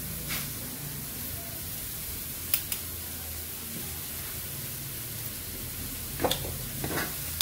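Cabbage, tomato and egg frying in a wok with a steady hiss. A spatula clicks against the pan a few times: once early, twice about two and a half seconds in, and twice near the end.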